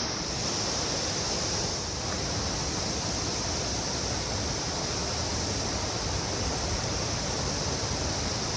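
Cicada chorus droning steadily at a high pitch over the even rush of flowing water from a stream or waterfall.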